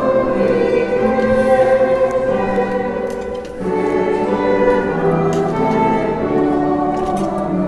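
Church choir singing a hymn with instrumental accompaniment, in long held chords that change about halfway through.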